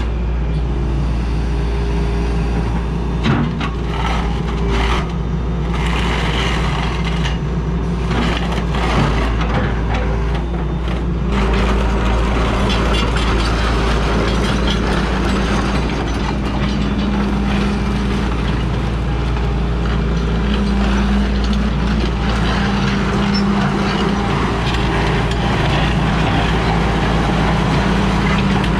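1991 Hitachi crawler excavator's diesel engine running steadily, with a few clicks and knocks in the first ten seconds; the engine gets a little louder from about eleven seconds in.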